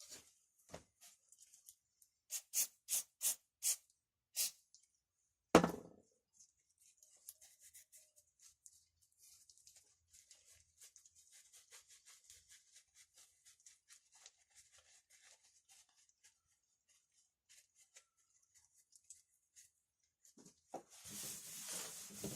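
Hand work on Ural chainsaw starter parts: a quick run of six sharp clicks, then a single loud knock. Faint small clicks and rubbing follow, with a burst of rustling near the end.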